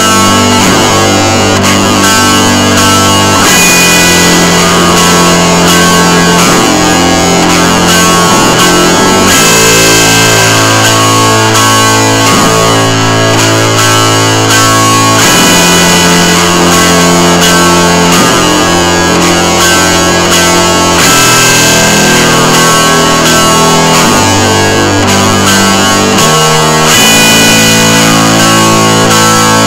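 Loud guitar music with distorted electric guitar; the low chord tones change every few seconds.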